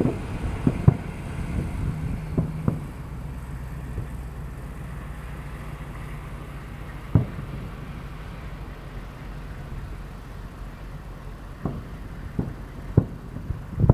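Distant aerial fireworks shells bursting: a cluster of sharp bangs in the first three seconds, one loud boom about seven seconds in, and several more bangs near the end, over a steady low rumble.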